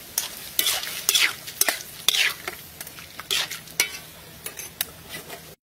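A metal ladle stirs and scrapes through a sizzling stir-fry in a pan, about two strokes a second over a steady frying hiss. It cuts off suddenly near the end.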